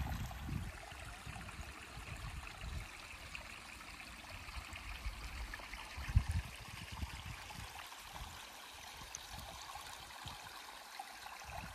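Small shallow stream trickling steadily over stones. A few low rumbles come at the start, and a brief low thump about six seconds in is the loudest moment.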